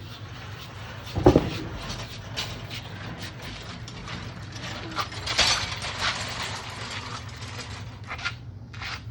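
Metal clanking and ratchet-like clicking from the riding mower being handled, most likely its deck lift mechanism being worked, with one loud thump about a second in.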